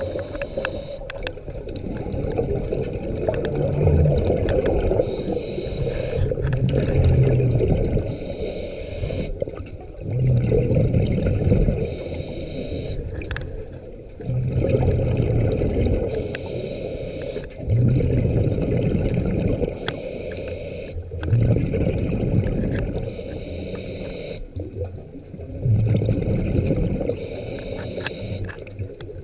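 Scuba diver breathing through a regulator underwater: a short hiss on each inhale, then a louder low rush of exhaled bubbles, repeating about every four seconds.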